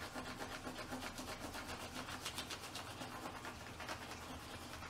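Crayon rubbed quickly back and forth over paper on a hard table: a soft, even run of scratchy strokes, several a second.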